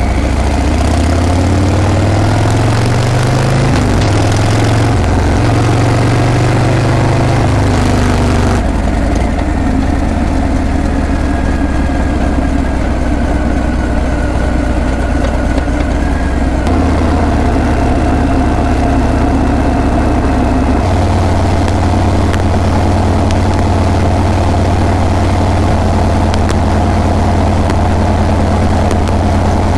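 Harley-Davidson Breakout's V-twin engine and exhaust running under way. The note rises over the first few seconds as the bike accelerates, then changes abruptly a few times, about a third of the way in, near the middle and about two-thirds of the way in.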